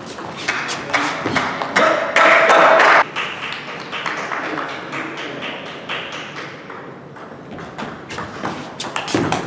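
Table tennis ball clicking sharply off the paddles and table in quick rallies. About two seconds in, a loud noisy burst lasts about a second.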